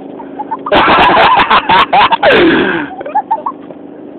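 A loud burst of shouting and laughing voices, lasting about two seconds and ending in a falling yell, over a lawn mower engine running steadily.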